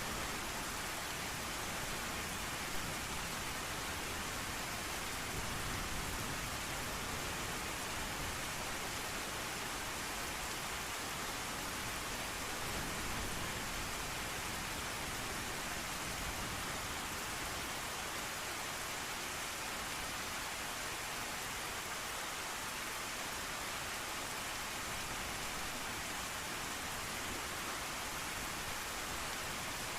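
Steady rain, a dense, even hiss blended with white noise.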